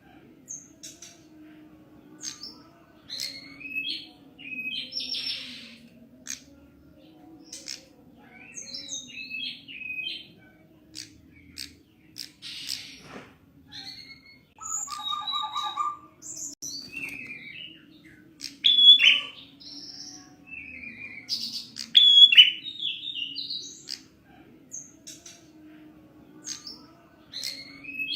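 Prinia (prenjak) calling: repeated sharp chirps and short high trills in bursts with brief pauses between them, over a steady low hum.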